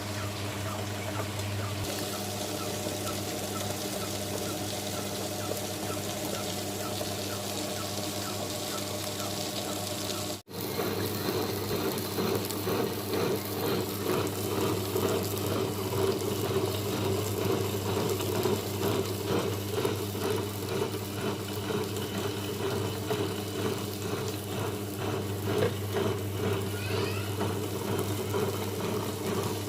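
Wonderchef Maxima tabletop wet grinder running steadily, its motor humming as the drum turns against the grinding stones to grind idli and dosa batter. The sound breaks off for a moment about ten seconds in, then comes back louder and churning.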